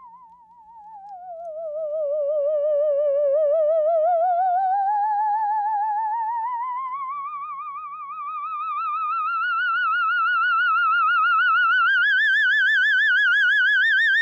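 High ghost sound effect from a vintage sound-effects record: a single wailing tone with a fast, even vibrato. It swoops down in pitch over the first few seconds, then climbs slowly and steadily higher, swelling and fading in loudness as it goes.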